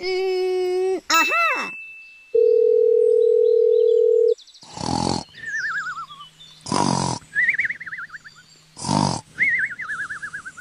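Cartoon snoring sound effect: a rasping snore followed by a wavering, falling whistle, repeated three times about two seconds apart. It is preceded by a short run of electronic tones and a steady beep lasting about two seconds, which is the loudest sound.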